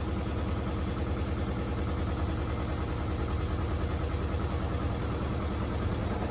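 Indesit IWD61450 washing machine spinning on its final spin: a steady mechanical rumble with a fast, even pulse from the turning drum and a thin high whine over it.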